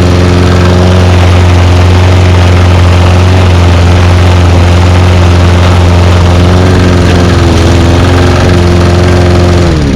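Honda HRX217TDA lawn mower engine, cold-started on choke, running at a steady speed. Near the end it is shut off and its pitch falls as it winds down.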